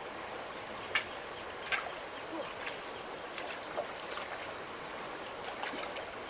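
Steady high-pitched insect drone, with a few sharp clicks and small chirps scattered through.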